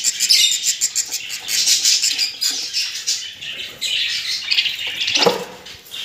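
Budgerigar nestlings in an opened nest box giving high, raspy cheeping calls as they are handled. There is a single knock about five seconds in.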